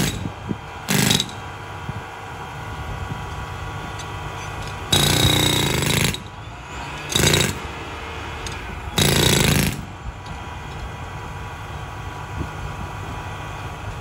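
Jackhammer breaking ground in the trench in short bursts: four in all, the longest about a second. A steady engine hum runs underneath and between them.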